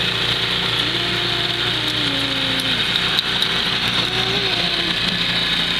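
An engine running steadily with a strong hiss, and a fainter tone that rises and falls every second or so.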